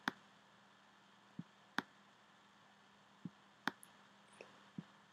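About seven faint, scattered clicks from a pointing device as handwriting is drawn on a computer screen. Some clicks are sharp, some duller, over a faint steady hum.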